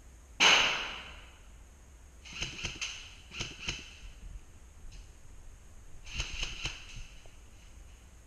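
Airsoft guns firing: a loud sharp crack just after the start, then short bursts of quick snapping shots, two clusters between about two and four seconds in and another about six seconds in.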